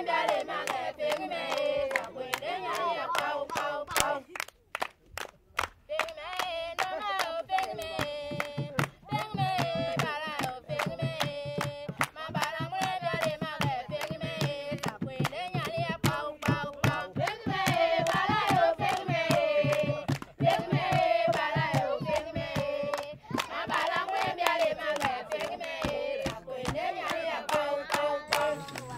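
A group of voices singing with steady hand clapping keeping the beat, with a brief lull about four seconds in.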